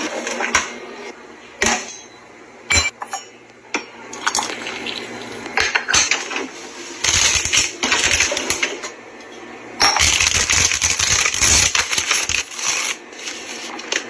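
Kitchen restocking sounds: a string of sharp clicks and knocks of hard items being set down and handled, then two longer stretches of crinkly rustling as plastic snack packets are handled and put into a pull-out pantry drawer.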